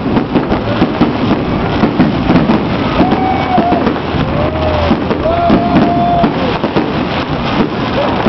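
Fireworks going off in rapid succession, a dense run of bangs and crackles over a low rumble, with people in the crowd calling out long drawn-out cries.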